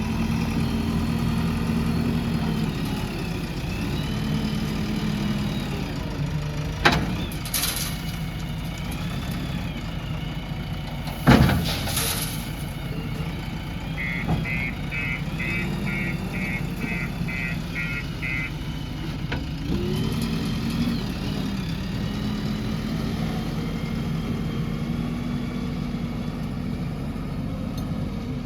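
JCB 3DX backhoe loader's diesel engine running, its revs rising and falling as it works, with two sharp metallic knocks about 7 and 11 seconds in. Midway comes a run of about ten short, evenly spaced beeps.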